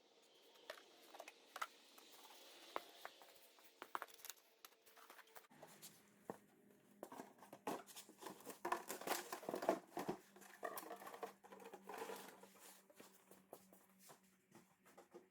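Irregular light clicks, taps and rustling, like hands handling small objects, with a steady low hum that comes in about five and a half seconds in.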